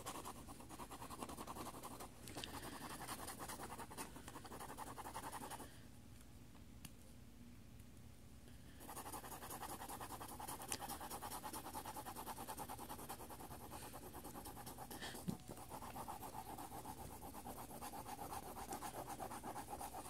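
Mechanical pencil lead scratching rapidly back and forth on lined notebook paper, shading in an area with fast, even strokes. The scribbling stops for about three seconds around six seconds in, then resumes; a light tap sounds about fifteen seconds in.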